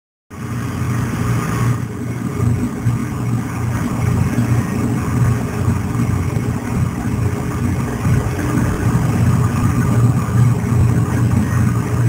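A steady low mechanical rumble, like a motor or engine running, that keeps on without a break.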